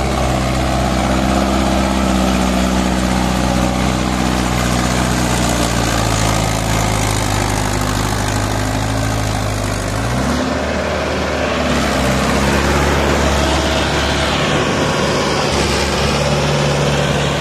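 Mahindra Yuvo 585 tractor's four-cylinder diesel engine running steadily under load, hauling a fully loaded trolley through deep mud. Its note changes about ten seconds in, with a short rise in pitch.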